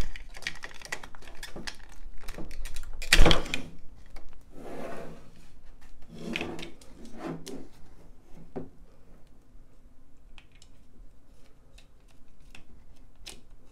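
Irregular plastic clicks, knocks and rubbing from handling sealed lead-acid UPS batteries and their plastic bracket while the cable connectors are unplugged. The loudest knock comes a little over three seconds in, and the clicks thin out in the second half.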